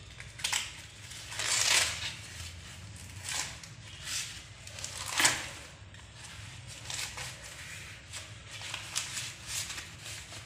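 An ear of fresh corn being husked by hand: the green husk leaves and silk tear and peel off the cob in a series of rustling, ripping pulls. The loudest pull comes about five seconds in, with lighter, quicker strokes in the last few seconds.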